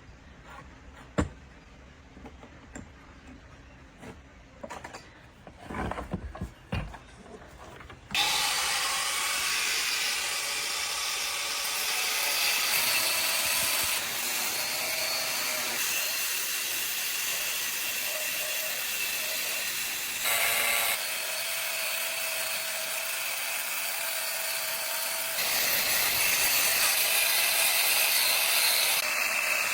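A few light clicks and knocks of parts being handled, then about eight seconds in an electric power tool starts and runs steadily and loudly, its sound shifting abruptly several times.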